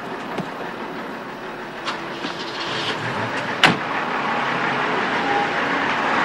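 Car door slamming shut about halfway through, after a few light clicks and rustles of a passenger climbing in. After it the car's running noise grows louder as it pulls away.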